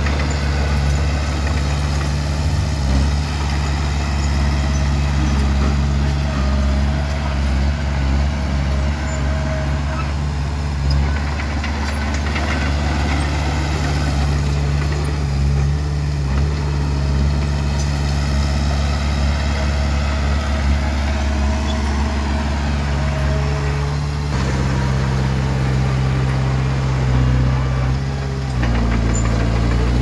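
Bulldozer diesel engine running steadily under work, its note shifting in pitch twice in the last few seconds.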